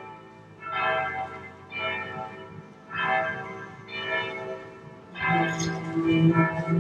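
Church bells ringing, several bells striking roughly once a second, each stroke leaving a long ringing tone. About five seconds in a louder, deeper bell joins, and its low hum carries on.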